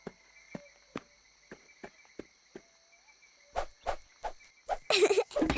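Cartoon jungle ambience: faint, steady, insect-like chirring with a series of short clicks or knocks about two a second, coming faster and louder in the last two seconds.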